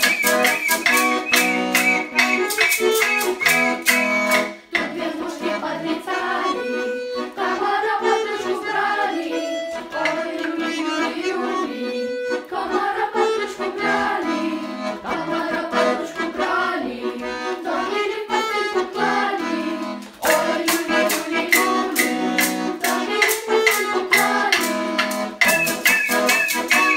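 Button accordion playing a Belarusian folk tune with a children's choir of girls' voices singing a verse in the middle. Before and after the singing, the girls play along on high folk whistles, wooden spoons and rattles, giving a fast clacking beat.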